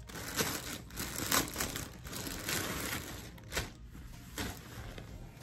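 Clear plastic packaging crinkling and rustling as it is handled and a folded shirt is pulled out of it. The crinkles come irregularly and grow fainter after about four seconds.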